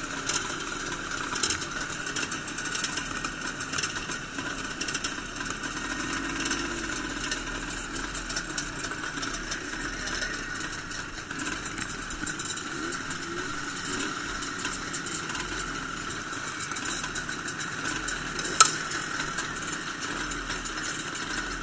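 Motorcycle engines idling steadily at some distance, with one sharp click about three quarters of the way through.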